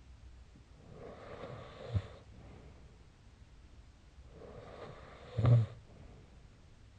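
A person snoring: two snores about three and a half seconds apart, each a breath that swells and ends in a brief deep, low sound. The second, about five and a half seconds in, is the louder.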